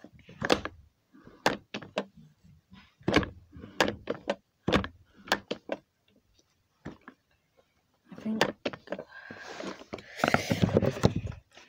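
Household knocks and clunks, a dozen or so sharp separate strikes, then after a short lull a denser stretch of clattering and rustling near the end: someone moving about and handling things, a door among them.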